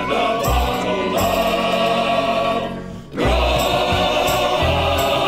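Background music: the close of a choral sea shanty, voices holding sung notes over a pulsing bass. The sound drops away briefly about three seconds in, then comes back at full level.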